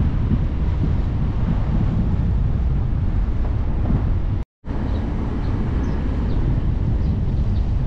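Wind buffeting the microphone: a loud, steady, gusty low rumble that cuts out to silence for a moment about halfway through.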